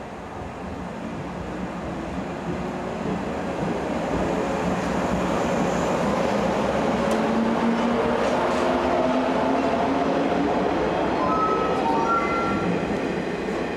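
JR 103-series electric train pulling out and gathering speed past the platform. Its traction motors whine and climb slowly in pitch while the running noise of the cars grows louder over the first few seconds, then holds.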